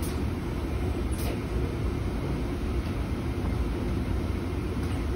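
Steady low drone of a screen-printing shop's machinery, the conveyor dryer running, with a faint light click about a second in.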